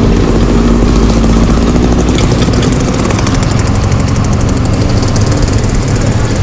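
Bus engine running with a steady low rumble, with a faint steady hum over it for the first few seconds.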